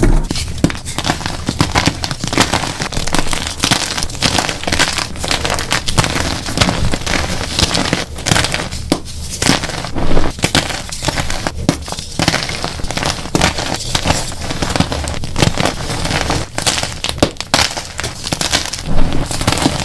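Dyed gym chalk blocks crushed by hand: a dense, continuous run of crunching and crumbling as the blocks break into crumbs and powder.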